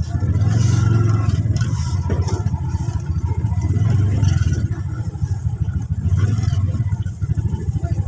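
Motorcycle tricycle's engine running as it rides along, a fast steady pulsing that rises and eases a little with the throttle.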